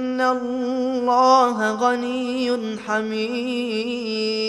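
A man's voice chanting Quran recitation in melodic tajweed style, holding long drawn-out notes with small ornamental turns. About three seconds in there is a brief break, then a steady, slightly lower held note.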